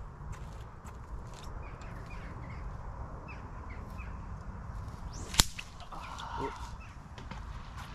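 Carp rod cast: a single sharp whip-crack about five seconds in as the rod snaps forward, the line cracking off because the reel's bail arm was left closed. Small birds chirp and wind rumbles on the microphone throughout.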